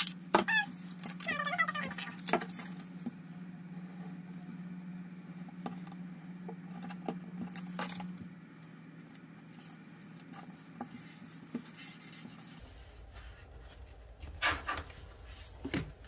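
Paper and cardstock being handled on a tabletop: light rubbing with scattered clicks and taps, including a corner-rounder punch near the start.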